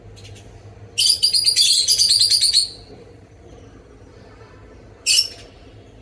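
Yellow Fischer's lovebird calling: a loud, rapid, high-pitched chattering run lasting under two seconds from about a second in, then one short sharp call near the end.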